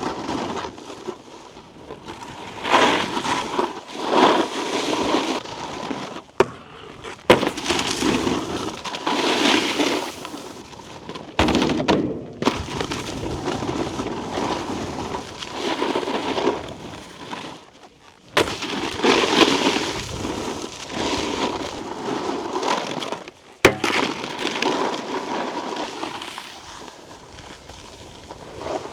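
Snowboard edges scraping and carving over icy, chunky snow in repeated swells of rushing noise, with several sharp knocks from the board landing or striking features.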